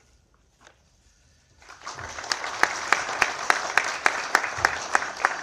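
Audience applauding, breaking out about a second and a half in and going on as a dense clatter of many hand claps.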